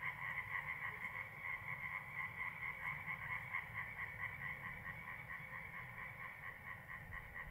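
Corncrake calling its rasping, evenly repeated crex-crex call in a steady rhythm.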